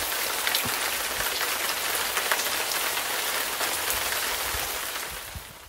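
Steady rain, a dense patter of drops on a wet wooden deck and a water-filled plastic kiddie pool, fading out near the end.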